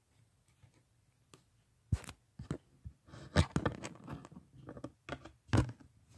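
Handling noise: a knock about two seconds in, a cluster of knocks and scraping rustles around three and a half seconds, and another sharp knock near the end.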